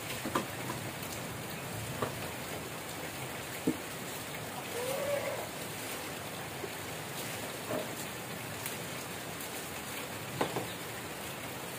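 Steady rain-like hiss from sliced shallots sizzling in a wok of hot oil over a wood fire, mixed with heavy rain, broken by a few scattered clicks and knocks as firewood is pushed into the stove.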